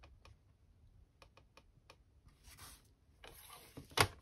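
Handling of card stock on a paper trimmer: a few faint taps and soft brushing as the sheet is slid into place, then one sharp click about four seconds in as the trimmer's clear cutting arm comes down onto the card.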